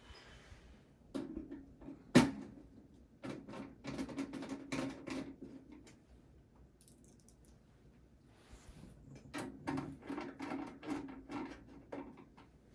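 Screws being driven back into a desktop PC's steel case with a screwdriver: two spells of quick metallic clicking and rattling, with one sharp knock about two seconds in.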